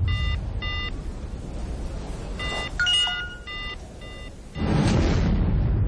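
Short electronic mobile-phone beeps, a quarter second each, in two runs over a low rumble. About three-quarters of the way through, a sudden loud swell of noise comes in and holds.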